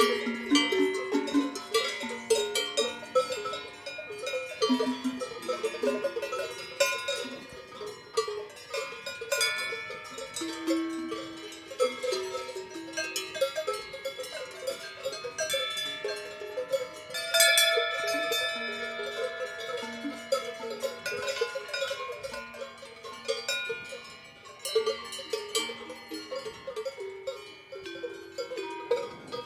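Many cowbells on a walking cattle herd clanking irregularly, each bell ringing at its own pitch and overlapping with the others.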